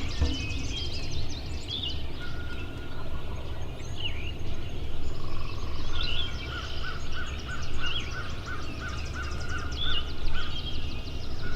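Wild turkey calling in a dawn chorus of many songbirds chirping and trilling, with a series of evenly spaced notes from about five seconds in to about ten seconds in.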